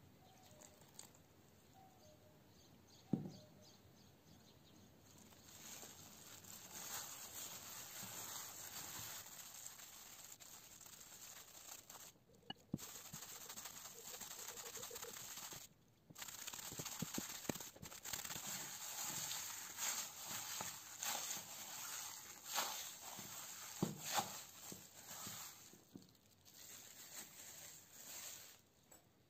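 Flour and water being mixed and kneaded into dough in a glass bowl by a hand in a thin plastic glove: a rustling, crinkling noise with scattered small taps and squishes, starting about five seconds in. A single sharp tap comes about three seconds in.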